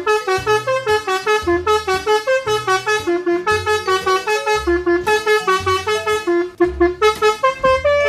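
Basuri telolet multi-trumpet air horn set off by remote, playing a fast preset tune of short, loud horn notes, several a second, over a low pulse about once a second.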